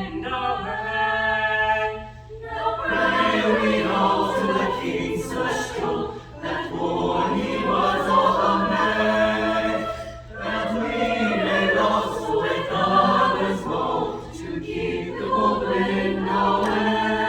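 Madrigal choir singing a carol a cappella, its sung phrases breaking off briefly about every four seconds. A steady low hum runs underneath.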